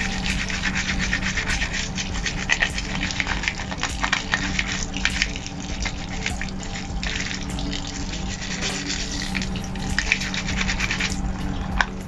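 A toothbrush scrubbing the plastic mesh screen of an LG washing machine's magic lint filter in rapid back-and-forth strokes, with tap water running and splashing over it.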